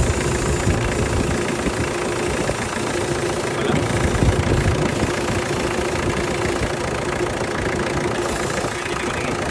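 Vehicle engine idling steadily with its air-conditioning compressor running, a constant hum over a low rumble; a deeper rumble eases off about a second in. The mechanic goes on to judge that the compressor has lost its pumping strength.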